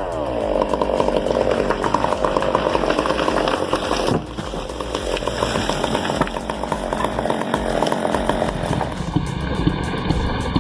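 Chainsaw engine running hard, as when cutting wood, with abrupt changes about four seconds in and again near the end.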